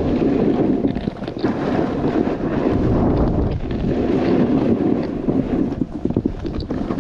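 Wind buffeting the microphone during a fast downhill run in a snowstorm: a loud, rough rushing that dips briefly about a second in and again near the end.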